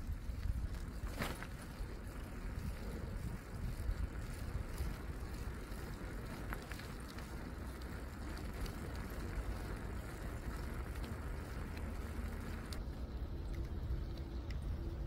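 Steady low rumble of wind buffeting the microphone while moving along a paved path, with scattered faint ticks. The hiss above it thins out near the end.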